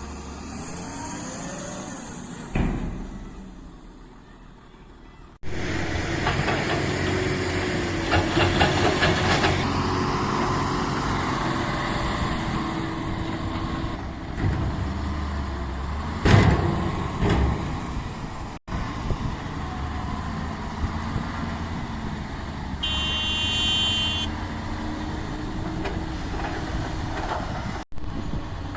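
Heavy diesel machinery working: a loud, steady engine sound whose pitch rises and falls under load. It jumps up abruptly about five seconds in. A brief high-pitched tone sounds a little after the twenty-three-second mark.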